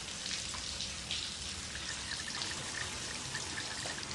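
Running water with hands washing in it: a steady trickle broken by small irregular splashes.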